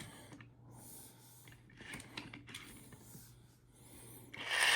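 Faint handling clicks and rustles of a small toy car, then near the end the wind-up racer's clockwork gear mechanism starts a loud, steady whirring buzz.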